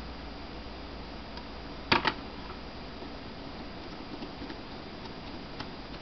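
Small screws being fitted into a laptop hard-drive caddy with a small Phillips screwdriver: two sharp clicks close together about two seconds in and a few faint ticks, over a steady background hiss.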